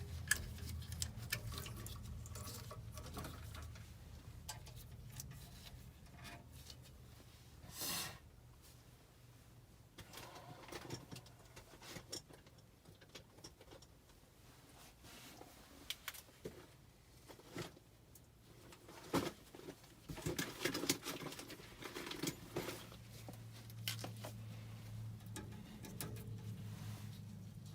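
Scattered light clicks, taps and short scrapes of hand tools and metal fittings being handled while working on a gas furnace's gas piping and valve. A low hum sits under the start and returns near the end.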